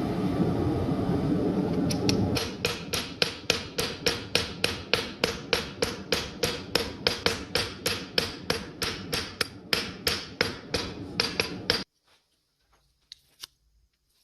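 Hammer striking hot steel in a steady rhythm of about three blows a second, each with a metallic ring, over a continuous roar. The hammering starts about two seconds in, and the hammering and roar cut off abruptly near the end.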